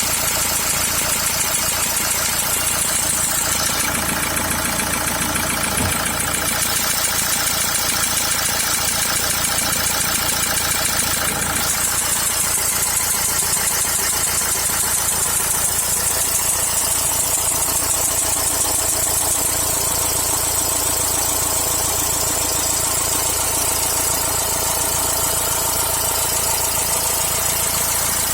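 2.0 dCi four-cylinder common-rail diesel engine idling steadily, with a rapid knock from the top of the engine that the owner can't place: either under the valve cover or the injectors.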